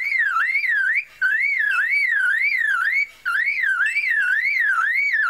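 Superb lyrebird mimicking a car alarm: a loud whistled siren that sweeps up and down about three times a second, breaking off briefly twice.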